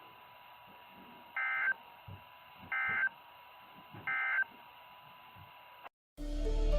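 NOAA Weather Radio's SAME end-of-message signal: three short warbling data bursts, each about a third of a second, a little over a second apart, over faint radio hiss and a thin steady whine. These bursts mark the end of the weekly alarm test. The audio cuts out briefly near the end and music starts, rising to the loudest sound.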